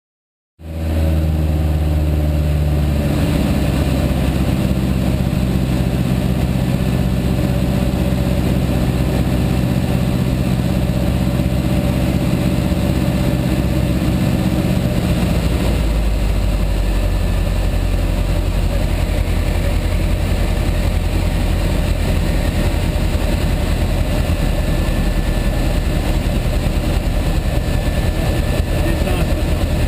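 Piper PA-18 Super Cub floatplane's piston engine and propeller, heard from inside the cockpit, running steadily. About halfway through, the engine note drops lower as power is pulled back on the approach to a water landing.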